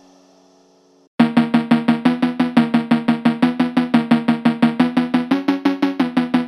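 Background music: a faint tail of one track fades out, then a new track starts abruptly about a second in with rapid repeated pitched notes and a drum beat, about six notes a second.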